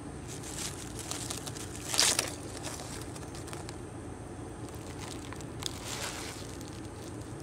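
Rabbit tugging at and chewing fresh leaves on a branch: irregular rustling and crunching of the leaves, loudest in a short burst about two seconds in, with another flurry near six seconds.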